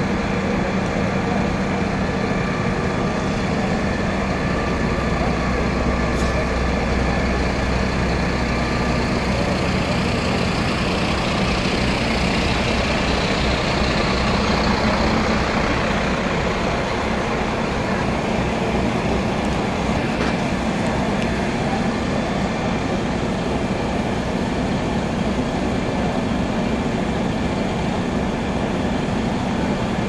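Fire engine's diesel engine running steadily at idle, with a low hum throughout; a higher hiss swells for several seconds in the middle, up close beside the appliance. Background voices murmur.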